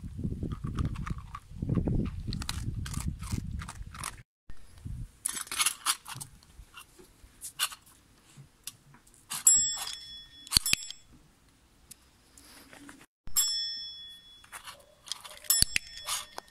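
A metal desk service bell struck about four times in the second half as a dog presses it with a paw, each strike ringing on briefly. Before that, in the first few seconds, there is low rumbling and rustling.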